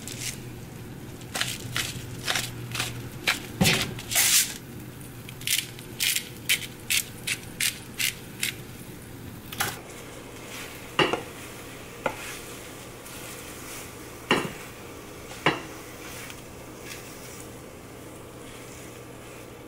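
Black pepper grinder twisted over a frying pan, giving a quick run of crunching clicks. Then a handful of separate knocks and scrapes of a utensil against the non-stick pan as scrambled eggs are lifted out, over a low steady hum.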